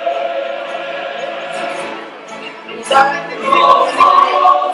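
A group of voices singing together, holding long notes; the singing softens a little past the middle and swells louder again about three seconds in.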